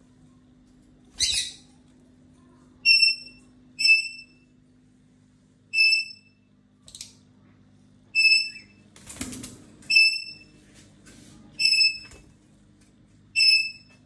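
Caged parrots calling: seven short, sharp, high chirps at intervals of one to two seconds. Between them are a few brief, rougher noisy bursts.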